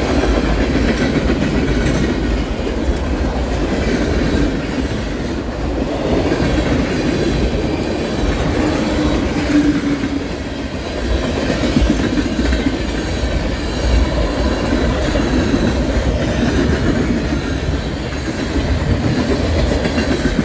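Freight cars of a mixed manifest train (tank cars, boxcars and covered hoppers) rolling past at close range: a steady run of steel wheels on rail, with a brief tone a little before halfway.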